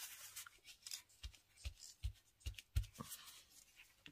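Paper being handled at a craft table: short crackles of paper, with about half a dozen light knocks on the work surface between one and three seconds in.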